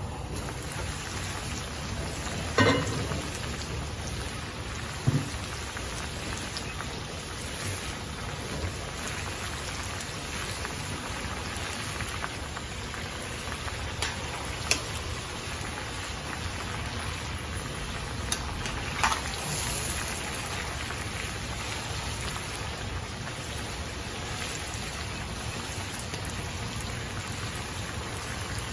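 Chicken and potatoes frying in hot oil in a cast iron pot, a steady crackling sizzle, with a few sharp metal clinks from the lid and tongs.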